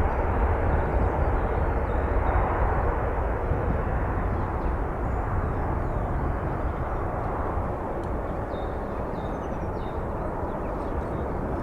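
Jet airliner engine noise: a steady, broad rumble that slowly fades.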